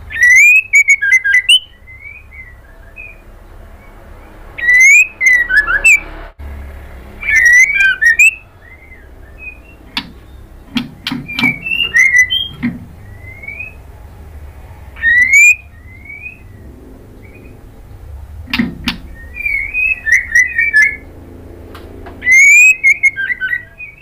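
White-rumped shama (murai batu) singing. It gives loud phrases of rising whistled notes, each running into quick chattering notes, every few seconds. A run of sharp clicks comes around the middle.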